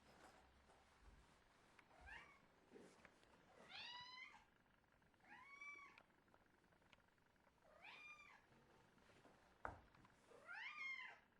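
Domestic cat giving five short, squeaky meows a couple of seconds apart, each rising then falling in pitch. A single click sounds between the last two meows.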